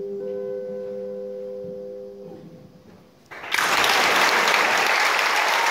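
A guitar's last chord rings and fades away over the first two seconds or so. After a short pause an audience breaks into applause, which is the loudest sound.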